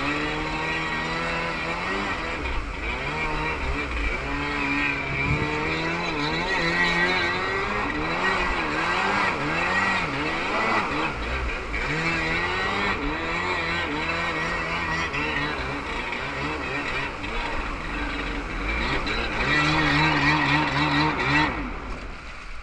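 Kawasaki JS550 stand-up jet ski's two-stroke twin engine running under way, its pitch rising and falling over and over with the throttle, over the rush of water from the hull. Near the end the engine note drops away sharply.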